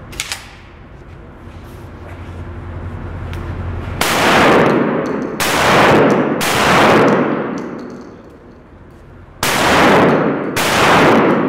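Five shotgun shots in an indoor range, each followed by a long echo off the walls: three close together about four seconds in, then a pause and two more near the end.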